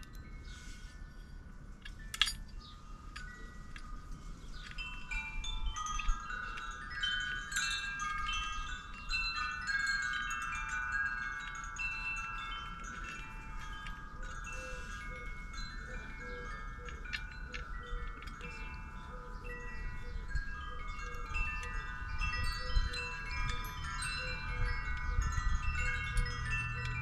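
Wind chimes ringing, with many overlapping notes struck at irregular intervals and sustained. There is a single sharp click about two seconds in.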